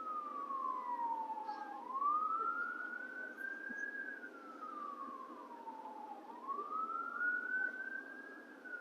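Emergency vehicle siren wailing, its pitch sliding slowly down and back up twice, about four seconds per cycle, over a steady background hum.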